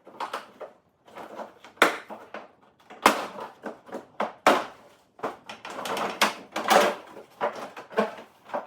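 Plastic front bumper of a Renault Clio Sport Mk2 being pulled and worked free of the car: a run of sharp plastic knocks and clatters, with a denser stretch of rattling and scraping past the middle.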